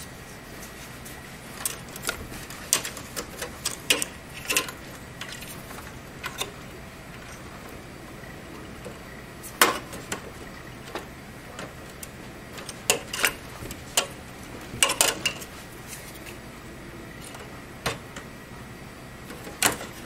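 Irregular clicks and light taps of SATA cables and their plastic connectors being handled and pushed into place against the steel chassis of a desktop PC case, some coming in quick clusters.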